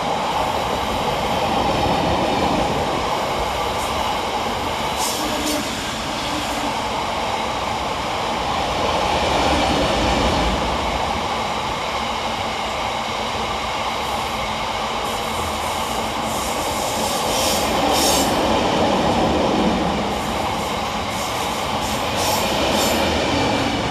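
Freight train of open-top aggregate wagons rolling past close by: a continuous rumble and rattle of wheels on the rails. Short high-pitched wheel squeals come a few times, about five seconds in, again around seventeen seconds, and near the end.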